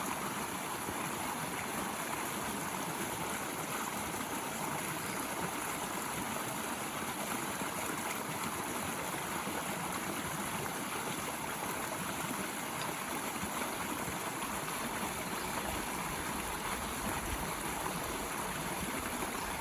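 Water running steadily down a woodland dirt road, a continuous rushing and trickling like a small stream.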